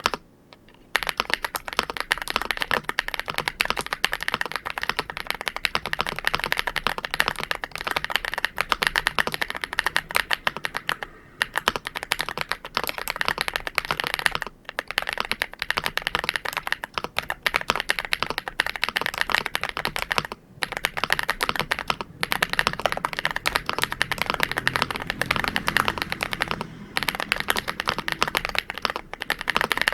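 Fast continuous typing on an MCHOSE GX87 mechanical keyboard with Matcha Latte switches, a dense stream of keystroke clacks broken by a few brief pauses.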